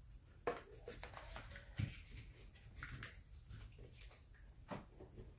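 A few soft, separate taps and clicks as small gel polish bottles are handled and set down into the foam insert of a nail kit box.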